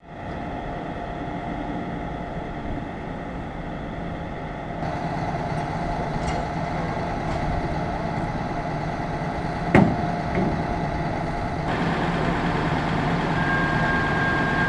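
Heavy truck's diesel engine idling steadily, with one sharp click about ten seconds in. A steady high whine joins near the end.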